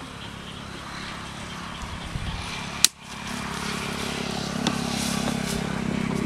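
A sharp click about three seconds in, then a small engine running steadily, its hum growing louder toward the end.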